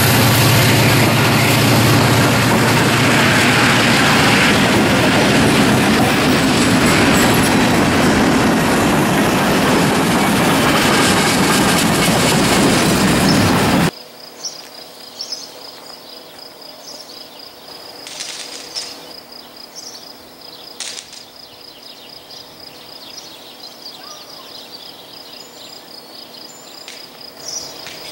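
Close pass of a multi-unit CSX EMD diesel locomotive lashup: the engines run loudly, with heavy wheel and rail noise as the units and then freight cars roll by. About halfway through the sound cuts abruptly to a much quieter scene, where a steady high insect buzz is heard with a few faint clicks.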